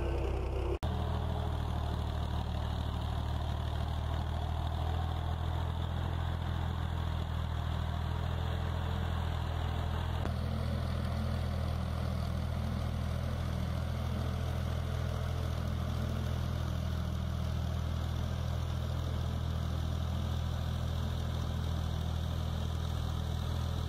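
Fiat 480 tractor's three-cylinder diesel engine running steadily under load while pulling a tine cultivator through ploughed soil, a steady low drone. The sound drops out for an instant about a second in.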